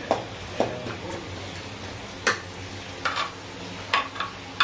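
Long metal ladle knocking against the pot and clay bowls while broth is dipped out and poured, a handful of sharp clinks spaced irregularly, over a steady low background hum.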